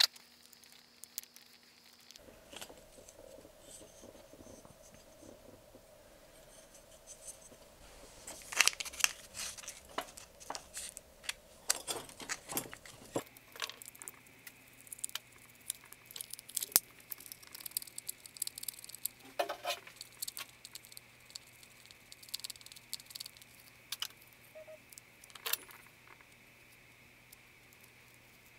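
Irregular light clicks, taps and scraping of small hand tools and stiff wire being handled against a wooden lure body on a workbench. The clicks are thickest about a third of the way in.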